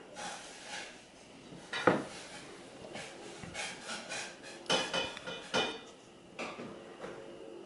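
Irregular taps and knocks on a plastic high-chair tray as a baby's hands pat it and pick at bits of food, the sharpest knock about two seconds in and a few more later.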